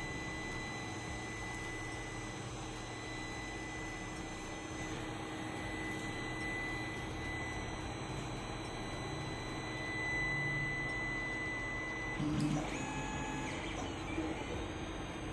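Desktop FDM 3D printer at work: stepper motors humming, shifting pitch as the print head moves, under a steady high whine that stops about twelve seconds in.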